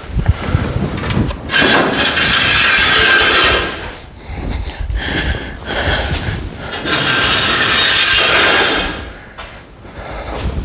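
Steel floor jack rolled and scraped across a concrete shop floor: two long rolling scrapes of about two seconds each, with shorter knocks and scrapes between them.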